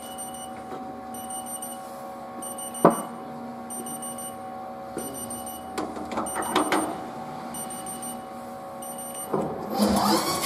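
Haas TL-2 CNC lathe humming steadily with a few fixed tones while a hand works at the part in the chuck. There is one sharp knock about three seconds in and a few clicks around six seconds. Near the end a rising whine comes in as the machine starts up again.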